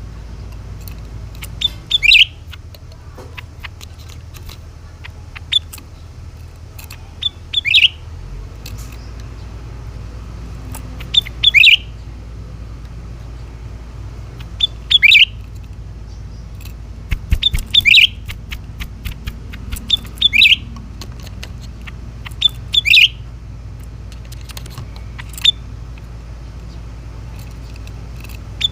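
Cucak ranting bird calling: a short, loud chirp of two or three quick notes, repeated about every three seconds, over a steady low hum.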